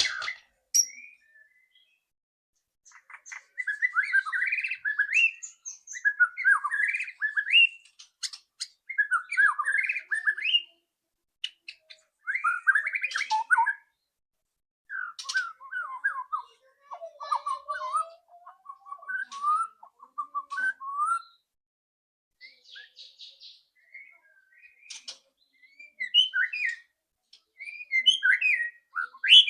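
White-rumped shama singing: phrases of fast, varied whistles and chattering notes, each a second or two long, with short pauses between them.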